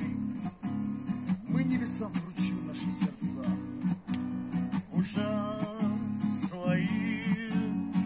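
Acoustic guitar strummed in a steady chord rhythm. A voice holds a few long, wavering notes a little past the middle.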